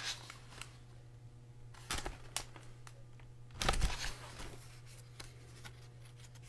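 Quiet room tone with a steady low hum, and a few faint rustles and knocks from a hardcover picture book being handled: about two seconds in and again near four seconds.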